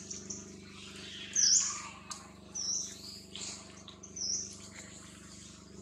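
A few short, high-pitched chirping calls over a steady low hum. The first chirp, about a second and a half in, is the loudest and swoops downward; three shorter ones follow at about one-second intervals.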